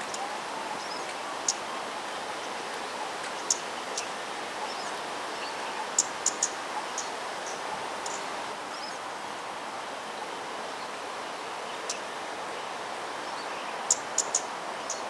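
Steady outdoor background hiss with short, high chirps of small birds scattered through it, several in quick succession near the end.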